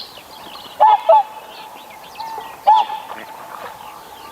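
Greylag goose honking: three loud, short, nasal honks, two in quick succession about a second in and one more near the end, over a background of faint chirping from smaller birds.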